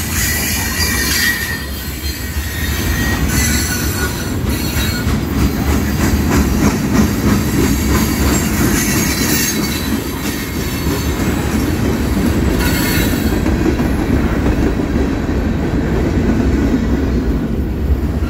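A freight train's cars rolling past at close range: a steady rumble of steel wheels on rail with occasional clacks over the rail joints, and a high wheel squeal in the first couple of seconds. The cars are centerbeam flatcars loaded with lumber, then covered hopper cars.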